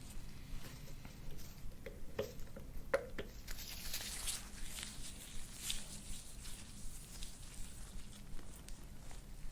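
A soft-tissue scraping tool drawn in strokes over the skin of the upper back, giving soft hissing rasps, with a few light clicks about two to three seconds in.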